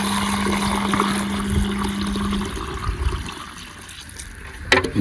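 Water pouring and running into a small toy river, alongside a steady low hum that stops about halfway through. The water sound dies down to a quieter trickle after about three seconds.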